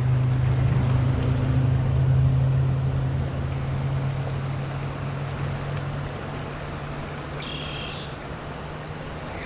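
Creek water rushing over a riffle, with a steady low hum underneath that slowly fades. A brief high-pitched tone sounds once near the end.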